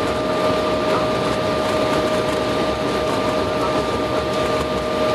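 Airliner cabin noise while rolling along the runway after touchdown: the steady rush and roar of the jet engines and airflow, with a steady high whine running through it.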